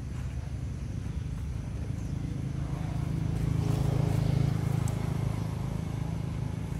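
Low, steady motor-vehicle engine rumble that swells louder in the middle, as if the vehicle passes, then settles back.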